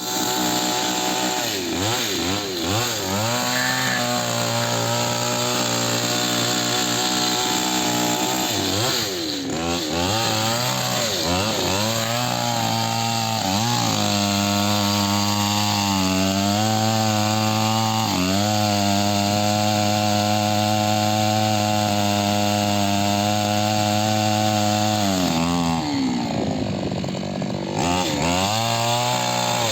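Chainsaw cutting into a candlenut tree trunk. The engine speed rises and falls repeatedly at first, then holds high and steady for about ten seconds, drops back near the end, and revs up again.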